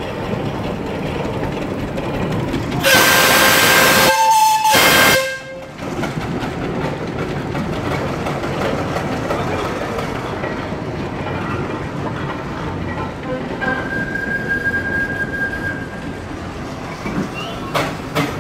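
Steam traction engine's whistle blowing loudly for about two and a half seconds, starting about three seconds in, with a short change in tone partway through. A fainter, steady whistle tone follows later for about two seconds, over steady background noise.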